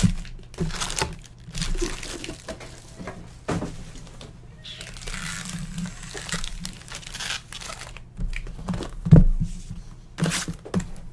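Foil trading-card packs crinkling and rustling as they are handled and stacked, with a thump about nine seconds in.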